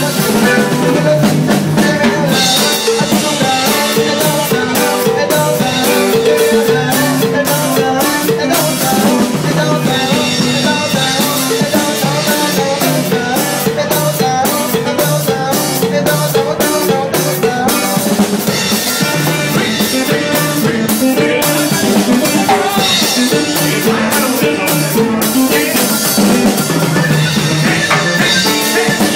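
Loud dance music with a steady drum beat.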